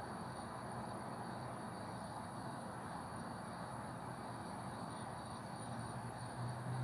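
Steady hiss from a gas hob burner and a saucepan of coconut-milk agar-agar mixture heating just short of the boil. A low hum joins near the end.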